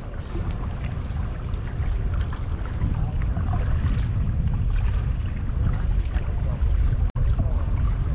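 Wind buffeting the microphone with a steady low rumble, with faint scattered ticks over it; the sound cuts out for an instant about seven seconds in.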